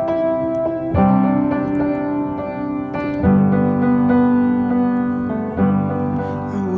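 Background music: slow, held keyboard chords that change every two seconds or so.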